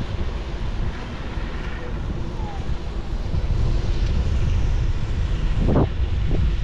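Wind buffeting an action camera's microphone during a bike ride: a steady low rumble, with a brief louder noise near the end.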